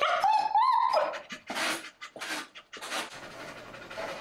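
Keeshond–American Eskimo mix dog giving a wavering, rising whine for about the first second. A few short breathy sounds follow.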